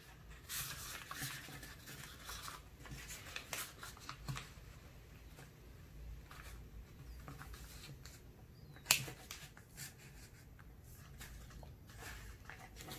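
A sheet of paper being folded in half and creased by hand, with soft rustling and sliding of the paper on a tabletop, and one sharp tap about nine seconds in.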